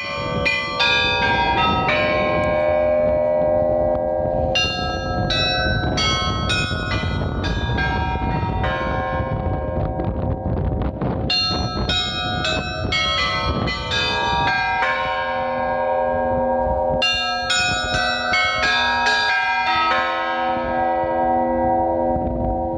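Russian Orthodox church bells ringing a full peal. Small high bells are struck in quick, rhythmic clusters over the long, steady ring of the larger, lower bells.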